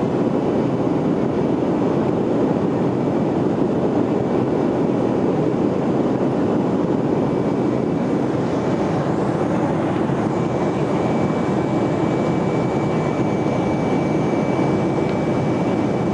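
Steady roar of a Boeing 737-200's Pratt & Whitney JT8D turbofan engines and airflow, heard inside the cabin during the climb after takeoff. A faint high steady whine joins about ten seconds in.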